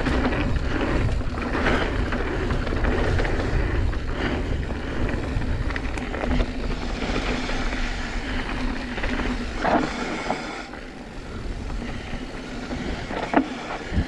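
Wind rushing over the microphone and tyres rolling over a dirt-and-rock trail as a mountain bike rides fast, with a couple of sharp knocks from the bike hitting rocks in the second half.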